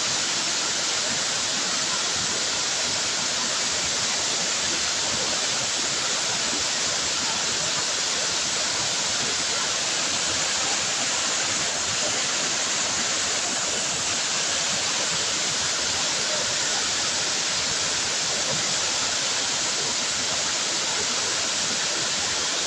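Waterfall: a steady, unbroken hiss of falling water that holds even throughout, with most of its weight in the high register.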